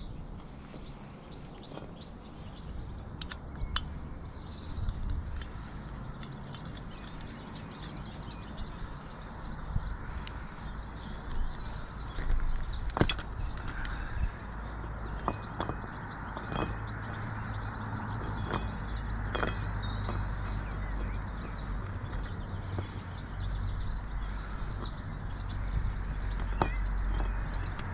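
Wild birds singing, a short high trill recurring three times among scattered chirps, over a low steady rumble, with occasional sharp clicks and knocks.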